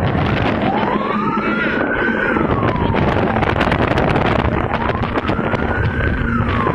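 Fire truck siren wailing in two slow rise-and-fall sweeps, each about three seconds long, with wind rushing over the microphone of the moving vehicle.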